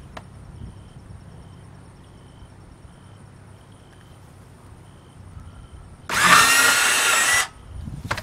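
Cordless power drill run in one short burst of about a second and a half on PVC pipe, whining up to speed at the start and then holding steady.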